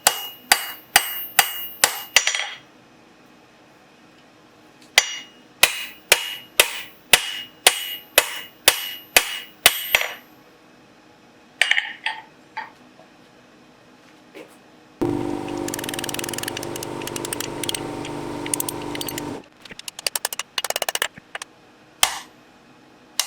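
Hand hammer striking hot steel on an anvil in runs of about two to three blows a second, with a ringing tone, straightening a forged caliper leg. Past the middle, a steady mechanical noise with a hum runs for about four seconds, followed by a quick crackle and a few more blows.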